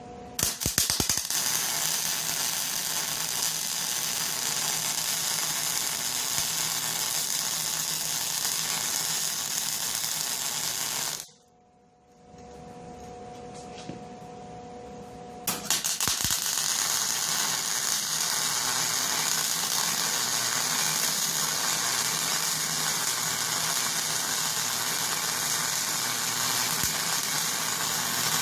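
MIG welder arc crackling steadily as steel hinges are tack-welded, using a 75/25 argon-CO2 shielding gas. Two long runs: one of about ten seconds, then a break of about four seconds with only a low hum, then a second run to the end.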